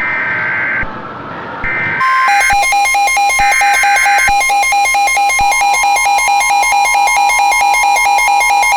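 Short bursts of Emergency Alert System header data tones (the two-pitch digital screech of an EAS header), three times, over a hissing background. About two seconds in, a loud, fast-pulsing electronic alarm tone begins and keeps pulsing, several beats a second.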